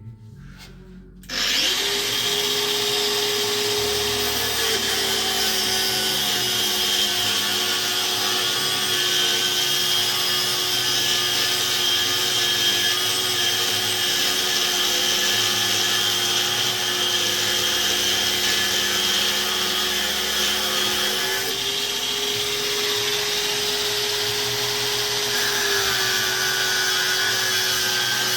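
Electric angle grinder switching on about a second in, then running steadily with a constant whine over a hiss. Its pitch shifts slightly a few times.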